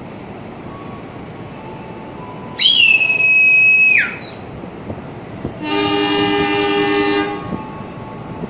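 A train conductor's whistle blown in one shrill blast of about a second and a half, followed a second and a half later by a diesel locomotive's air horn sounding a steady chord for about a second and a half. This is the whistle-and-horn exchange that signals a passenger train's departure.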